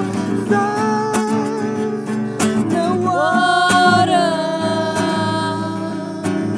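Song with acoustic guitar strumming and a sung melody held on long notes.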